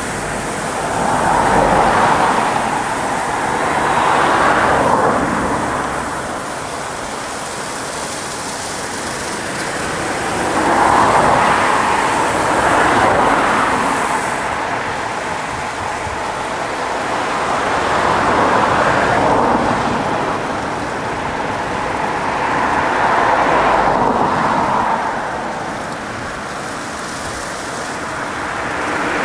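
Aquarama Stargate S111 rollover car-wash gantry at work, its rotating brushes and water spray scrubbing a car. It makes a continuous rushing, swishing noise that swells and eases every few seconds as the brushes pass over the bodywork.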